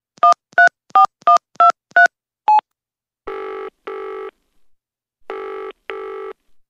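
Seven quick touch-tone keypad beeps as a phone number is dialled, followed by a double-ring ringback tone heard twice: the call ringing out at the other end.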